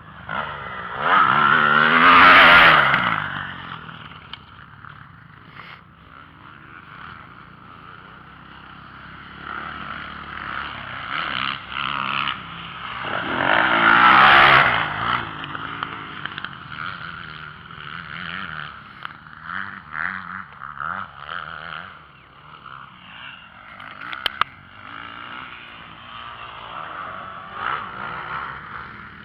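Motocross bike engines revving on a dirt track. Two loud passes go by close, about two seconds and about fourteen seconds in, with their pitch sweeping as they pass. Quieter engine noise rises and falls in between.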